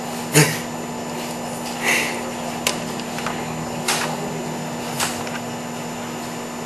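A steady hum runs throughout, broken by five short knocks or clicks spread over the first five seconds. The first one is the loudest.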